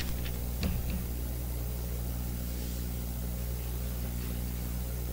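Steady low electrical hum with an even hiss above it, and a few faint clicks in the first second.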